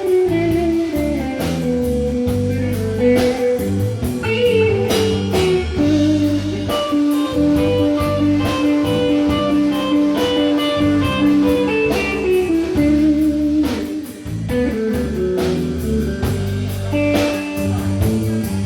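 A live band plays an instrumental break between verses of a country-blues song: a guitar-led melody with long held notes over strummed chords and a steady beat.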